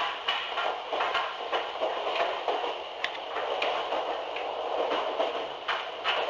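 Cabin noise inside a 300 series Shinkansen train: steady running noise with frequent irregular clicks and knocks.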